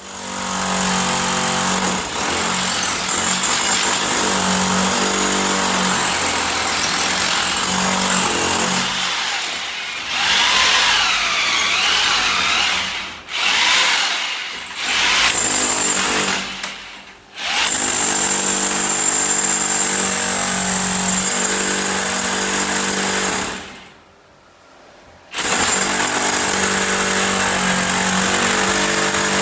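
Electric power drill running under load, with a steady motor whine. It stops briefly about four times, for a long pause near the end, and starts up again each time.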